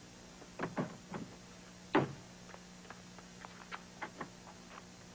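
A series of soft knocks and clicks as things are handled and put away, the loudest knock about two seconds in and lighter ticks after it, over a steady low hum.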